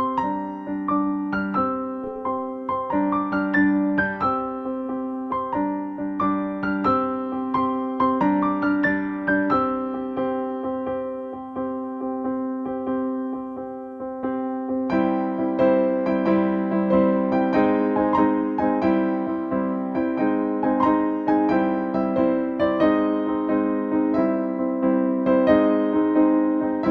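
Background music played on electric piano or keyboard, with a steady run of notes that grows fuller about halfway through.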